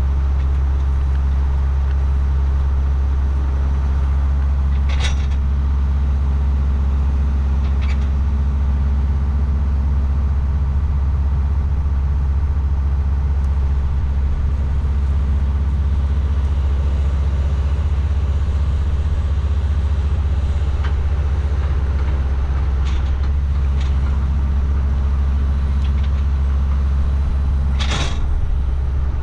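Farm tractor engine running steadily with a low, even drone. A few short knocks or clanks break in, one about five seconds in and a louder one near the end.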